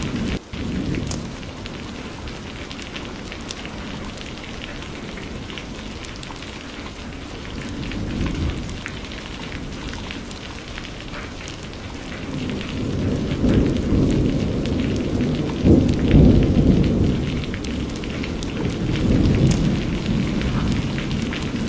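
Steady rain falling, with low rolls of thunder that swell and fade several times, the loudest in the second half.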